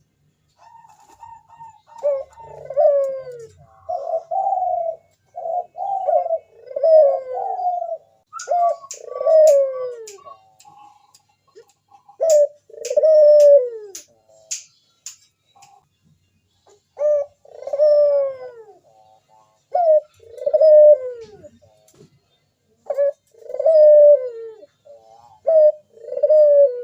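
Local puter dove (a domestic collared dove) giving its perched cooing song: repeated low, falling coos in groups with short pauses between them. A run of sharp clicks comes in the middle.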